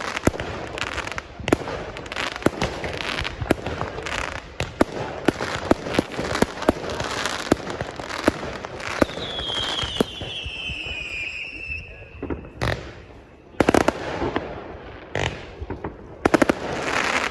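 Fireworks going off: many sharp bangs and crackles in quick succession, with a falling whistle from about nine seconds in that lasts about three seconds. Several louder bangs follow near the end.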